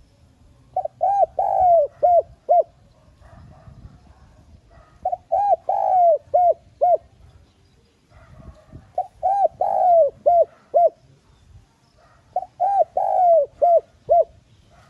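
Spotted dove cooing: four phrases, each a run of about five coos with a longer coo in the middle, repeating every three to four seconds. It is a decoy bird's call, used to draw and stir up other doves.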